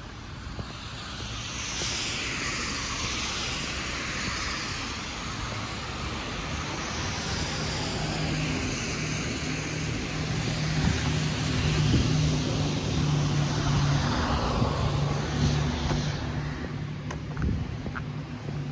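A passing engine-driven vehicle, swelling slowly to its loudest about twelve seconds in, with a low steady hum through the middle and a sweeping hiss above it.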